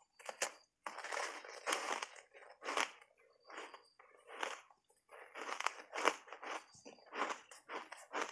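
Block ice coated in matcha powder being bitten and chewed, crunching in the mouth: an irregular run of sharp crunches with short pauses between them.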